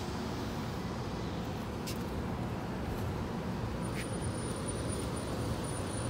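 Steady low outdoor city rumble: rooftop air-conditioning condensers and units running, mixed with street traffic below.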